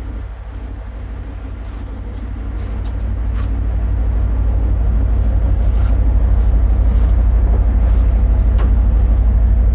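Steady low rumble of a vehicle in motion, growing louder over the first few seconds and then holding level, with a few faint clicks.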